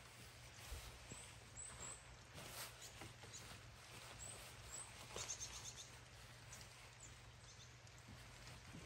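Near silence: faint outdoor ambience with a few short, high chirps and light rustles, including a quick run of chirps about five seconds in.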